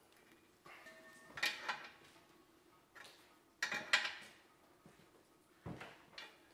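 Metal clinks and scrapes of an open-end wrench on an oxygen (lambda) sensor as it is screwed into a turbo downpipe, in four or five short bursts with a ringing metallic tone, loudest about one and a half and four seconds in.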